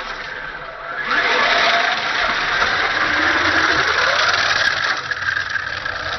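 Radio-controlled drift car running, its motor getting louder about a second in with a pitch that rises and falls as the car is driven, then easing off near the end.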